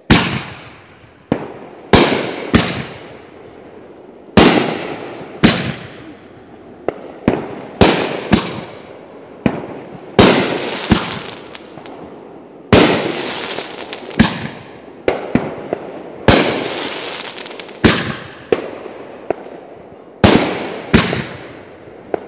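Fireworks going off in a rapid, irregular string of more than twenty sharp bangs. Each bang trails off in a crackle, and several have longer crackling tails.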